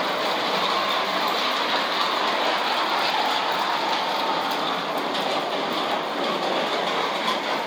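Early Lionel 2 7/8-inch gauge electric toy trolley train running on its two-rail track: a steady whirring and rattling of the motor and metal wheels on the steel rails.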